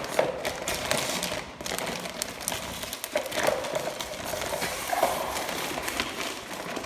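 Clear plastic packaging bag crinkling and crackling as hands handle it and pull a toy excavator and its sticker sheet out of it.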